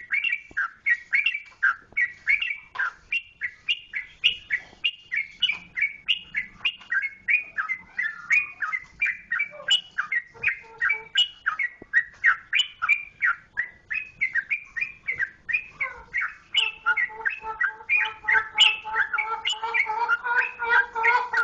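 Sooty-headed bulbul (trucukan) singing without a break: a fast, chattering run of short whistled notes, about three or four a second. From about three-quarters of the way through, a lower, more even series of notes joins in.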